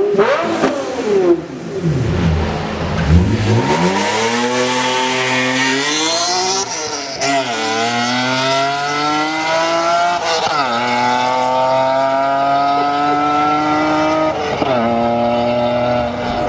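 Performance car engine at full throttle. A quick rev at the start, then hard acceleration with the pitch climbing and dropping sharply at each of three upshifts, about every four seconds.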